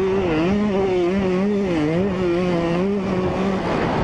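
2003 Yamaha YZ125 two-stroke motocross engine running under throttle, its pitch rising and falling several times as the rider works the throttle. Near the end the clear engine note drops away into a rough rushing noise.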